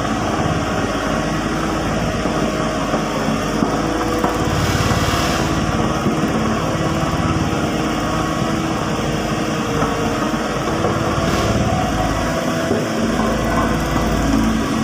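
A Volvo vibratory road roller's diesel engine runs steadily under load, with the drum working over rock. A brief rush of higher noise comes about five seconds in and again near eleven seconds.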